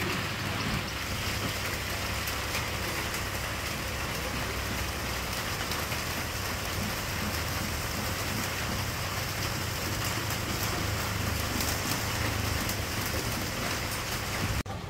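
Steady rain falling on surfaces, with a low engine hum underneath.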